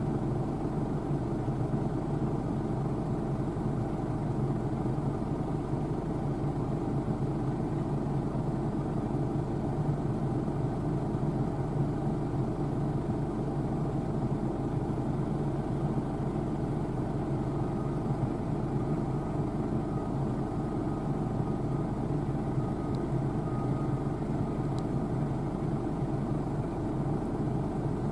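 New Holland TC5.80 combine harvester running steadily at work, a constant low mechanical drone. A faint higher whine comes in about two-thirds of the way through.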